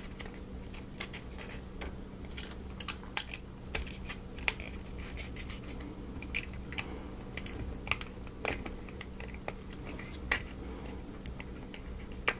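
Small wooden puzzle-model pieces being handled and fitted together: irregular light clicks and taps, a dozen or so, at uneven intervals, over a faint steady hum.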